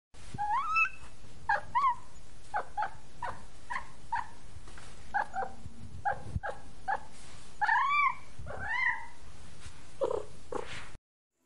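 A cat meowing over and over: about twenty short, chirpy meows, with longer rising-and-falling meows near the start and about two-thirds of the way through. It cuts off suddenly just before the end.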